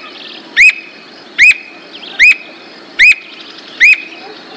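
Squirrel cuckoo calling a steady series of five loud whistled notes, about one every 0.8 seconds, each note rising and then dropping slightly in pitch.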